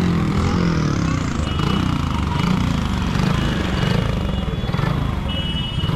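Busy market street noise: motorbike engines running among a crowd's chatter, with a short high tone sounding twice.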